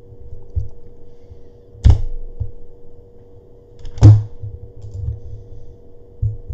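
Two sharp thunks about two seconds apart, typical of keys being pressed on a computer keyboard, over a faint steady hum.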